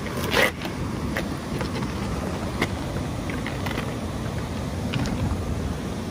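Steady low rush of wind on the microphone and moving water, with a sharper knock about half a second in and a few light clicks scattered through.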